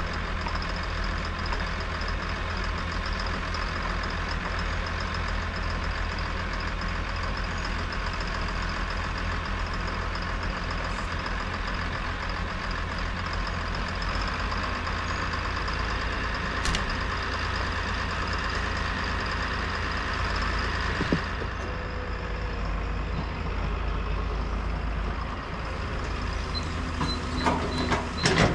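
Caterpillar hydraulic excavator's diesel engine running steadily. Near the end, a few clanks and knocks as the bucket digs into the earth.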